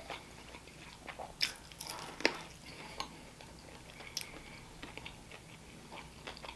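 Close-miked chewing of a saucy, crispy-skinned Thai peanut chicken wing: wet mouth smacks and a few short crunches, the loudest a little over two seconds in.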